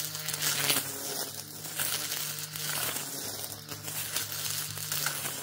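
Narion 42V cordless string trimmer's electric motor running steadily while its spinning head cuts through thick weeds. The whine carries dense crackling and rustling of shredded stems, swelling with each sweep about once a second.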